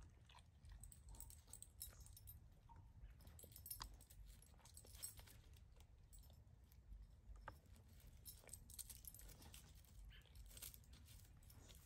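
Near silence: faint scattered crackles and ticks of a dog's paws moving over dry leaf litter and dirt, over a low steady rumble.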